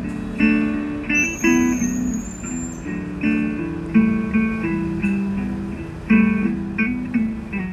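Background music: a guitar playing a melody of plucked notes.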